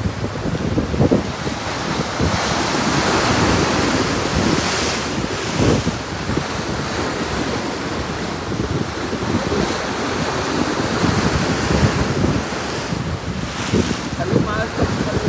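Sea waves breaking and washing in, swelling and ebbing every few seconds, with wind buffeting the microphone.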